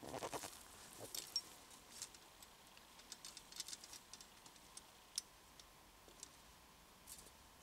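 Faint scattered clicks and ticks of a steel trap being handled and set by gloved hands, with a brief rustle at the start.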